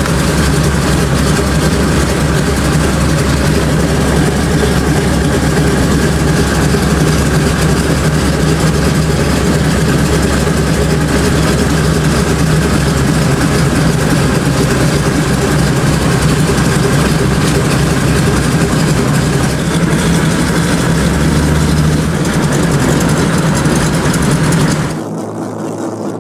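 Bushmaster 2000 Trimotor's radial piston engines and propellers running steadily, heard from inside the cabin. About a second before the end the sound cuts abruptly to a quieter, duller engine drone.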